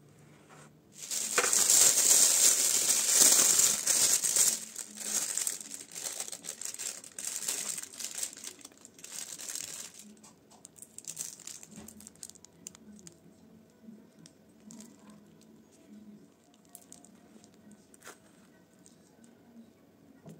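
Plastic piping bag crinkling as it is handled and filled with cream. The sound starts about a second in and is loudest for a few seconds, then thins to softer rustles and fades by about halfway, leaving only faint small clicks.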